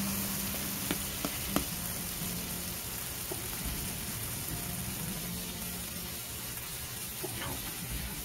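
Buttered rye-bread patty melt sizzling on a Blackstone electric flat-top griddle, a steady frying hiss. A few light clicks sound in the first two seconds.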